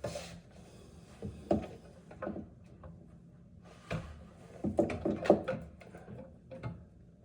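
Parts of a water filter system being handled and fitted: a string of short clicks and knocks, coming thickest and loudest about four to five and a half seconds in.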